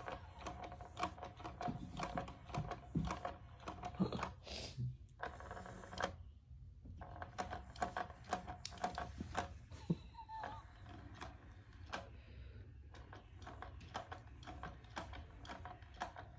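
Battery-powered interactive cat toys whirring, with a steady faint whine under rapid clicking and rattling of plastic as kittens bat at them.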